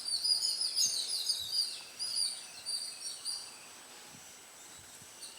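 Small birds chirping in quick, high twittering calls, busiest in the first few seconds and fading out after about three seconds, leaving faint background hiss.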